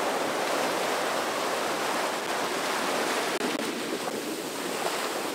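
Ocean surf washing up the beach, a steady rush of breaking and receding waves.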